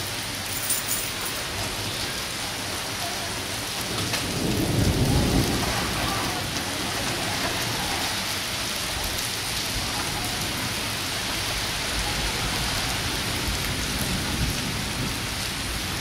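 Heavy rain falling steadily on standing floodwater and wet grass, with a low rumble that swells about four seconds in and fades over the next two seconds.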